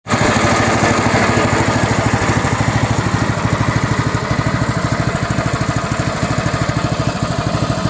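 Small gasoline engine idling steadily, with an even, rapid pulse.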